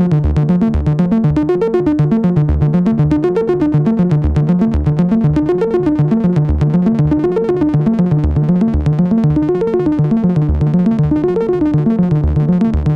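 Eurorack modular synthesizer playing a repeating sequence of quick notes, several a second, in an up-and-down melodic pattern that cycles about every two seconds. The sequence runs through a delay and a reverb pedal.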